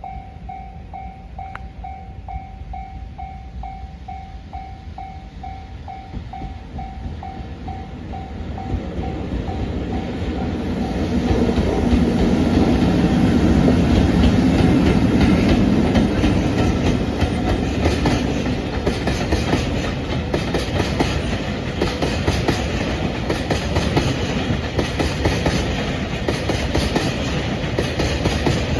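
A train passing: its noise grows over the first ten seconds, is loudest around halfway through, and carries on steadily to the end. Through the first third a single beeping tone repeats about twice a second.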